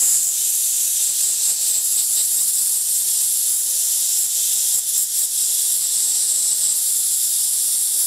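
Compressed-air blow gun hissing steadily as it blasts air at close range onto an inkjet printhead. This is done to blow leftover cleaning liquid out of the head and its electronics.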